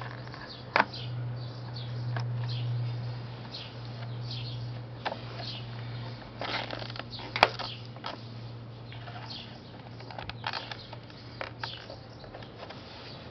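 Sidewalk chalk scraping on concrete paving in short, irregular strokes, with a few light clicks, over a steady low hum.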